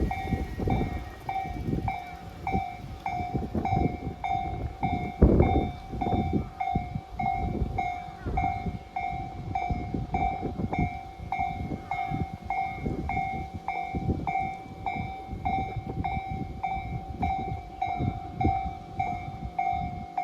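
Japanese level-crossing warning bell ringing in an even repeating beat, about two strikes a second, while a Tobu Noda Line electric train passes through the crossing. The wheels rumble and knock over the rail joints, loudest about five seconds in.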